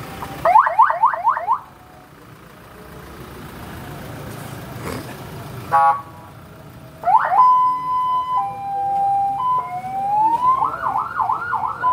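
Rescue vehicle's electronic siren being switched through its tones: a burst of fast yelp about half a second in, a short horn blast about six seconds in, then a two-tone hi-lo, a rising wail and fast yelp again near the end.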